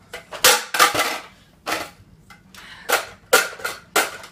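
Plastic clicks and clacks of a Nerf foam-dart blaster being loaded, its magazine fitted into the gun: about eight separate sharp clicks spread across a few seconds.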